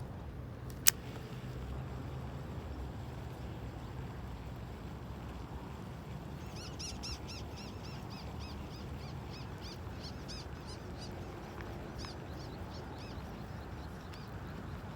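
A bird calling in a quick run of repeated arching high notes for several seconds midway, over steady low background noise. A single sharp click comes about a second in.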